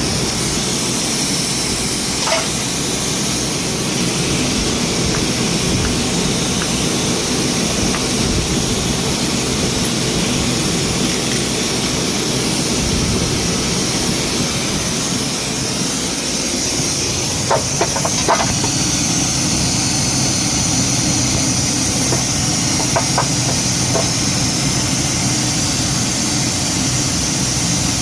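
Ford Ranger 2.2L engine running steadily, the engine the owner is checking for a knocking sound. A few short sharp clicks stand out over it about two seconds in, around seventeen to eighteen seconds, and again around twenty-three seconds.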